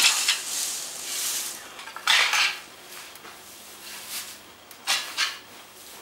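A pitchfork digging into and tossing dry straw: a series of rustling swishes, the loudest at the start and about two seconds in.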